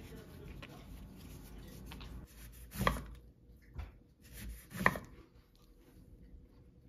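A lemon rubbed dry in a cloth towel, then a kitchen knife slicing through a lemon onto a wooden cutting board: two loud chops about two seconds apart, with a softer cut between them.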